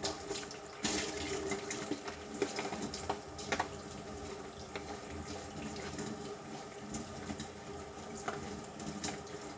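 Kitchen sink tap running while dishes are washed by hand, with a few light knocks of dishes against the sink.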